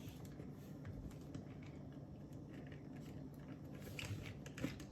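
Faint handling noise: light plastic clicks and taps as a battery is fitted into a remote control car's battery compartment, with a couple of slightly louder clicks near the end.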